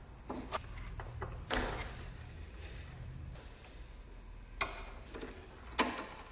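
A handful of sharp metal clicks and clinks from a wrench working the brake line fittings on a Bosch ABS hydraulic unit as they are undone, the loudest about one and a half seconds in, over a low steady hum.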